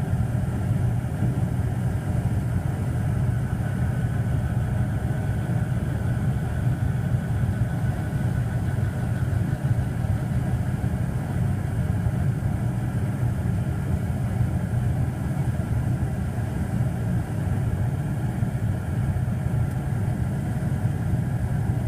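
A 1991 Day & Night 80% gas furnace running steadily with its draft inducer motor and burners firing. The furnace is in its blower-on delay, with the indoor blower not yet started.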